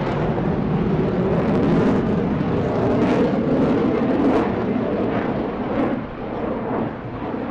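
HAL Tejas fighter's single GE F404 turbofan jet engine rushing as the jet flies past, building to its loudest in the middle and fading near the end.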